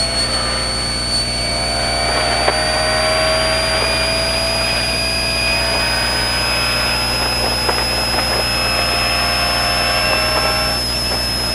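Mitsubishi Pajero rally car's engine running steadily under load, heard from inside the cabin as the car drives across sand. Its pitch climbs slowly, a steady high whine sits over it, and a few short knocks come through now and then.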